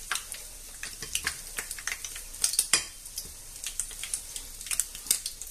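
Hot oil sizzling and crackling in a frying pan around milk-and-egg-soaked bread slices (torrijas) as they fry, with many sharp pops and occasional clicks of metal tongs against the pan.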